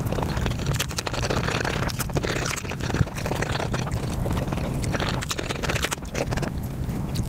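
A person eating close to a microphone, played back at five times normal speed: chewing and mouth sounds run together into a fast, dense stream of clicks, with one sharper click about three seconds in.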